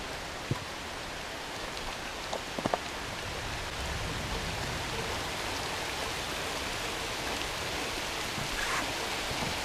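Heavy rain pouring down in a steady hiss, growing slightly louder about four seconds in. A few light knocks come in the first three seconds.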